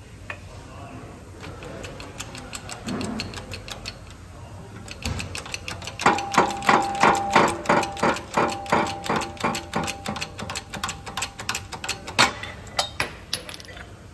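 Hydraulic shop press forcing a gear and bearing off a Subaru 4EAT transmission top shaft: a fast, even run of clicks, about five a second, for some six seconds, then one louder knock. Before it, softer clinks of metal parts being handled.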